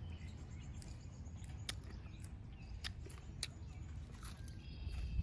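Quiet outdoor ambience: birds chirping faintly over a low steady rumble, with scattered sharp clicks of people chewing and eating.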